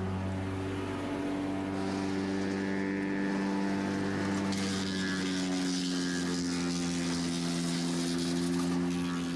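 Vermeer BC600XL wood chipper's engine running steadily with a pitched drone. About halfway through its pitch dips slightly and a hiss rises over it.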